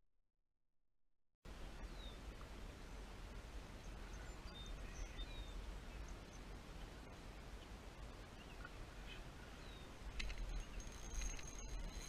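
Silence for about the first second and a half, then quiet outdoor ambience cuts in: scattered short bird chirps over a steady low rumble. Near the end there are a few clicks and knocks.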